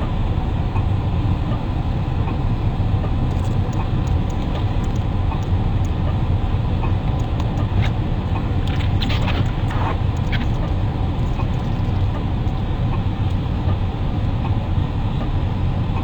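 Steady low rumble of a motor vehicle running, with a few faint clicks about halfway through.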